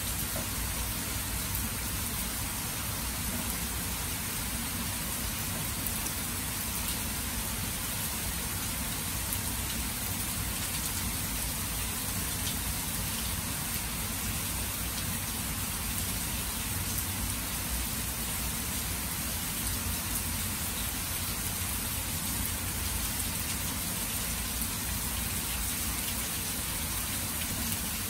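Steady rain falling onto water and grass: an even, constant hiss with a low rumble underneath.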